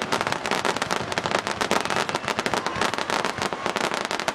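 Fireworks crackling: a dense, rapid run of sharp pops and crackles that goes on without a break.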